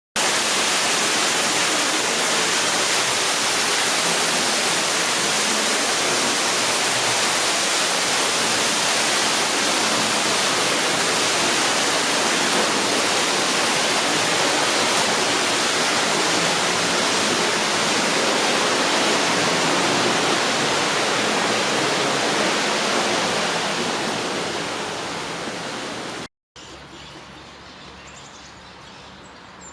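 Steady, even rushing noise like running water or hiss, fading down over the last few seconds before a brief cut, after which only a much quieter hiss remains.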